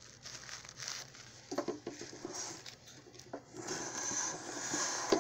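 Handling noise close to the microphone: irregular rustling, rubbing and light knocks as the phone is moved against a glass terrarium. It gets louder in the last second and a half and ends with a sharp knock.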